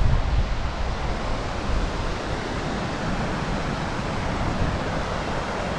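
Waterfall rushing as a steady hiss, with wind buffeting the microphone in low rumbling gusts, strongest in the first couple of seconds.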